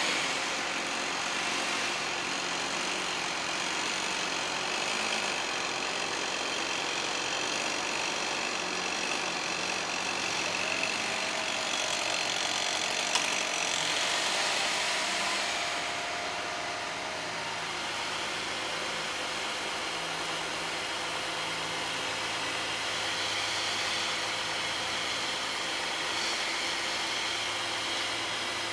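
An engine running steadily at an even pitch, typical of the tree crew's equipment such as a truck or wood chipper.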